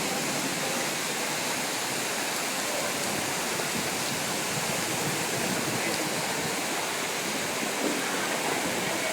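Steady rushing noise of heavy rainwater, a dense even hiss that does not let up.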